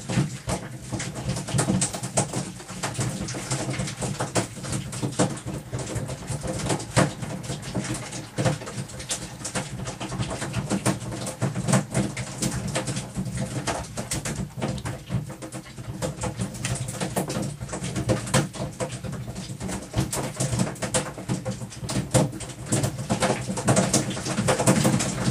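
Boat engine running steadily at idle, a low hum with frequent small knocks and rattles over it.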